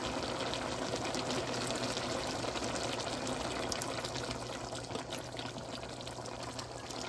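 Pork sizzling and bubbling in a pan in its juices and freshly added soy sauce, a steady crackling sizzle that eases slightly after about four seconds.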